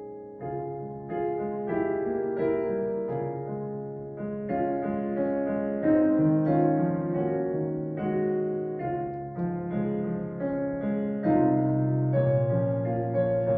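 Solo piano playing a slow, gentle hymn tune in chords, with a new note or chord about every half second to second.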